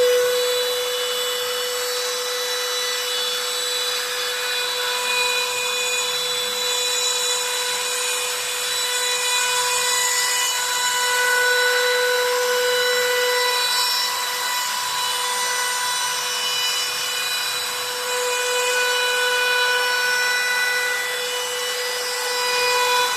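CNC router spindle running at high speed while its bit cuts sign-board material: a steady high whine over a rasping cutting noise.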